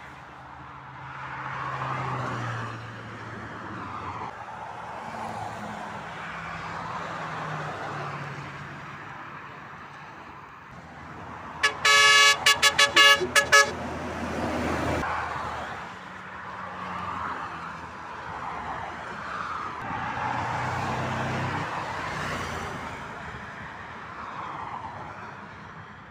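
Motorway traffic passing, with the engine drone of heavy vehicles swelling and fading as they go by. About twelve seconds in, a vehicle horn sounds in a quick series of short, loud blasts lasting about two seconds.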